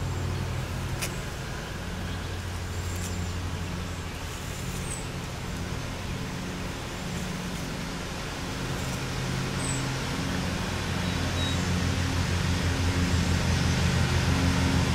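A steady low engine hum, like a motor vehicle idling or running, which grows louder over the last few seconds. A few faint high chirps are heard now and then.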